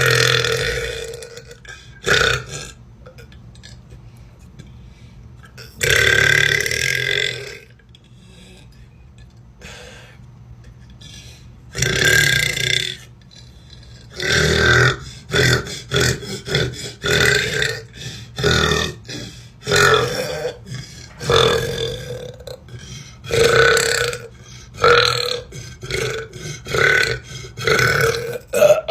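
A woman belching: long burps of about a second or more at the start, around six seconds in and around twelve seconds in, then a quick string of a dozen or so shorter burps, roughly one a second, through the second half.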